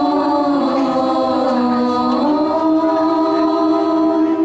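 Young women's voices singing a shalawat, an Islamic devotional song, into microphones. Two voices hold long, drawn-out notes together; the melody dips about halfway through, then steps back up.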